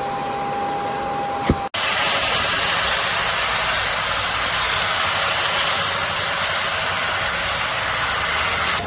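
Kärcher Puzzi 10/1 washing vacuum's suction motor running steadily with a thin whine. About a second and a half in there is a click and a sudden break, and then a steady, hissier rush of air.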